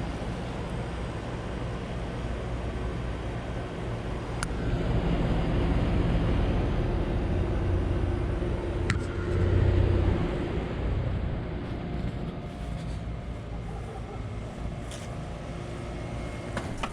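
Trane heat pump outdoor unit running, its compressor and fan making a steady low hum. The hum drops away about ten seconds in as the unit shuts off.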